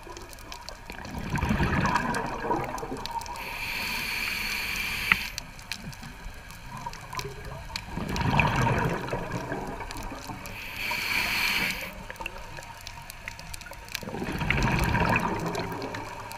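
Scuba diver breathing through a regulator underwater: three gurgling rushes of exhaled bubbles alternate with two hissing inhalations through the demand valve, in a slow, even rhythm.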